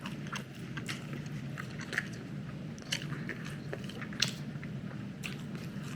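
A person chewing a mouthful of meat sandwich dipped in au jus: irregular wet mouth clicks and smacks over a steady low hum.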